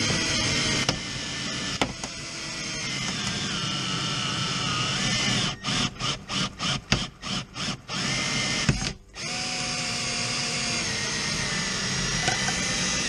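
Cordless drill driving a wire-cutout winder to pull the cutting wire through the windshield urethane. It runs steadily, then is pulsed on and off about eight times in quick succession, stops briefly, and runs steadily again.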